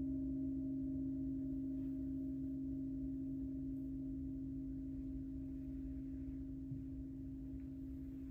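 Long ringing tone of a gong-bath metal instrument: a steady low hum with a few clean overtones that slowly fades.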